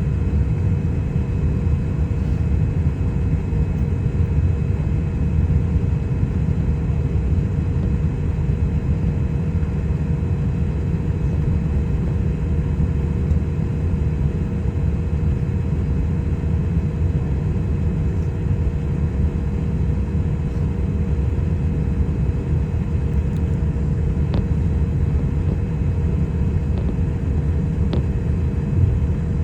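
Boeing 777 jet engines running at low taxi power: a steady low rumble with a constant hum over it, neither rising nor falling.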